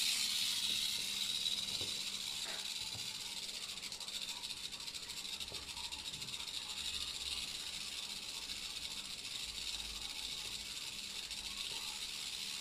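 Mexican west coast rattlesnake (Crotalus basiliscus) rattling its tail, a defensive warning: a steady high-pitched buzz that eases slightly in the first few seconds and then holds.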